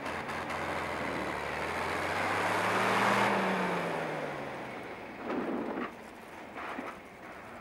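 John Deere 4020 diesel tractor driving past on gravel: the engine note swells to its loudest about three seconds in, then fades as the tractor moves away, its pitch dropping a little as it passes.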